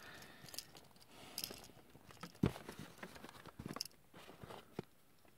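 Plastic parts of a Rockman EXE Blues Soul action figure being handled: faint scattered clicks and taps, with a few sharper clicks, as armor pieces are pulled off and fitted.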